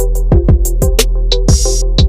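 Background music with a steady electronic drum beat: kick drum and hi-hat over bass and sustained chords.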